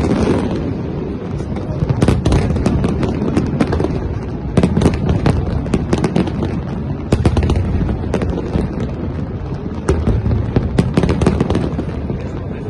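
Aerial fireworks shells bursting in rapid, irregular volleys of bangs and crackles over a continuous low rumble, with denser clusters of bangs about two seconds in, midway, and near the end.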